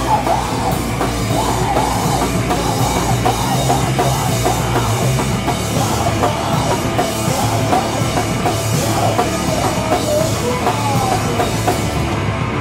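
Live heavy rock band playing loud: distorted electric guitars and drum kit with cymbals, with a vocalist on the microphone.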